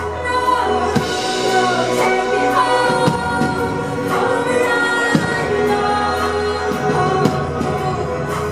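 Live pop music: a woman singing lead into a microphone over a band, with a sustained low bass and sharp drum hits.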